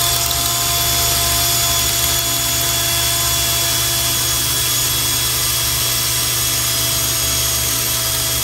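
Cordless drill running steadily with a 1/4-inch twist drill bit dragged along a tile floor's grout line, a steady motor whine over the grinding of the bit tearing out the grout.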